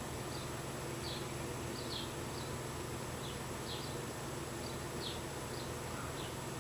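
Steady low electrical-sounding buzz, with short faint squeaks every half second or so from a sponge-tip eyeshadow applicator being rubbed back and forth on an eyelid piece.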